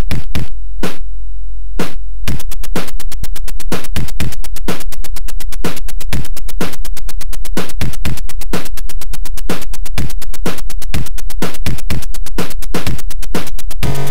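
Sampled demo music played through an Atari 8-bit computer's POKEY sound chip. It opens with a few sparse sharp hits over a low drone, then from about two seconds in runs as a fast, even stream of sharp hits, several a second.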